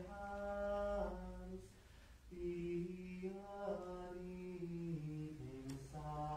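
A single male voice chanting liturgical plainchant, holding each note and then stepping to the next, with a short pause for breath about two seconds in.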